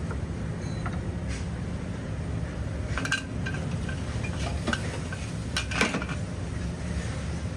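Metal spatula clanking and scraping against a steel wok while stir-frying noodles, with a few sharp strikes, the loudest about two-thirds of the way in. A steady low rumble runs underneath.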